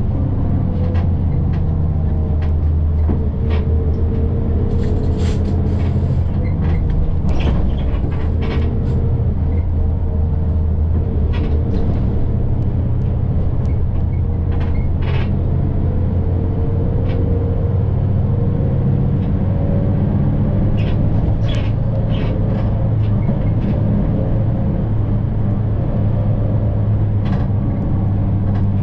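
City bus running at steady speed, heard from inside the cabin: a constant low engine and road drone with a faint whine that drifts slowly in pitch, and scattered light rattles and clicks.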